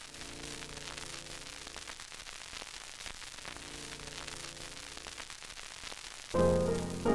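Static hiss, a television-noise effect, with faint held notes of music underneath; piano music comes in loudly about six seconds in.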